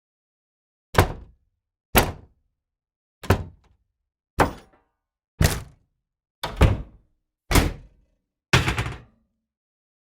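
A series of eight short, sharp thuds, one roughly every second, each with a brief fading tail and complete silence between them.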